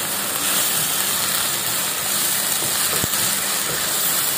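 Onion-tomato masala with freshly added chopped tomatoes sizzling in oil in a non-stick kadai as a wooden spatula stirs it; a steady hiss, with one brief click about three seconds in.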